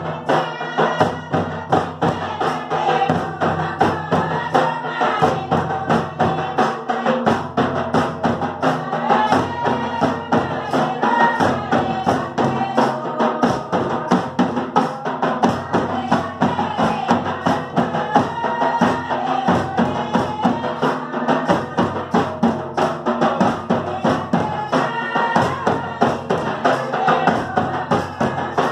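Folk dance music: a double-headed barrel drum beaten in a steady, driving rhythm, with a melody line above it.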